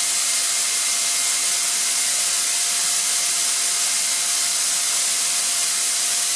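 Atlas Copco ZR 250 oil-free rotary screw air compressor running: a steady, loud, even hiss with a couple of faint constant tones underneath.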